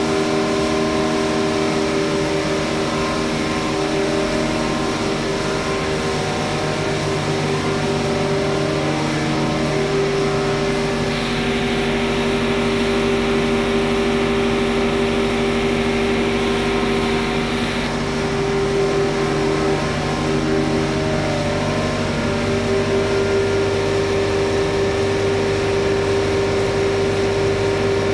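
Atta flour mill plant running: electric motors, belt drives and the bucket elevator make a steady machine hum with several held tones. A brighter hiss joins for several seconds midway.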